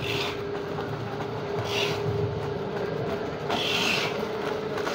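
Belt conveyor running with a steady mechanical hum and rumble, while plastic potato-chip bags on it crinkle three times as they slide along.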